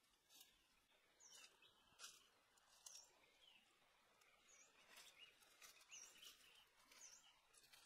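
Faint forest ambience: short, high bird chirps repeating every second or so, with a few brief rustles of bare feet stepping on dry leaf litter.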